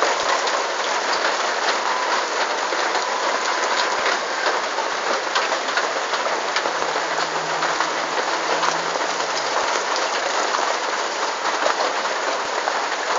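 Rain falling steadily on wet, puddled concrete: an even hiss of rain with many small, close raindrop splashes.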